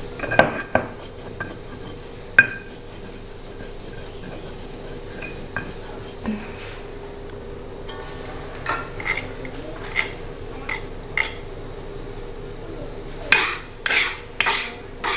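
A metal skimmer knocking and clinking against a steel pot of boiled goat meat: a few sharp clinks near the start, then lighter taps spaced about half a second apart. Near the end come several louder clanks and scrapes of a metal spatula. A steady low hum runs underneath.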